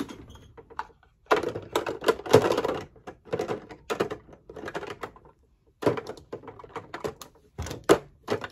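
Plastic makeup compacts and cases clacking and clicking against clear acrylic drawers as they are put away, in irregular clusters of knocks with short pauses.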